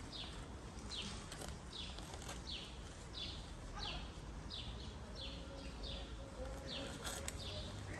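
A bird calling over and over: a short high note sliding downward, repeated about every two-thirds of a second.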